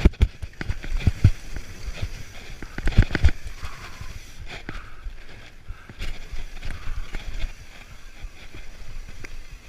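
Mountain bike going downhill over rough dirt trail: rattling and knocking from the bike and tyres over the bumps, heaviest in the first few seconds, with wind buffeting the microphone.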